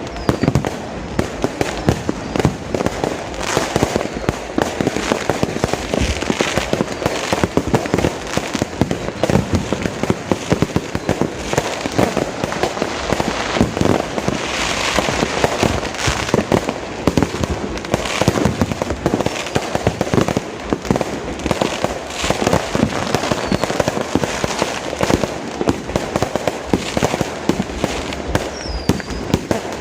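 Fireworks going off in a dense, continuous string of bangs and crackles.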